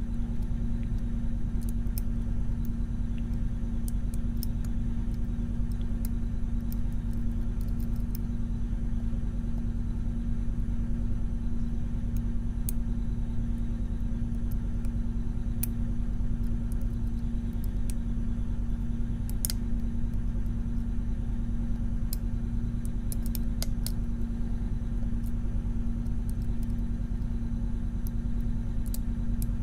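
A steady low hum, with faint, scattered small metallic clicks of lock picks working the pins of a Mul-T-Lock Junior pin-in-pin lock.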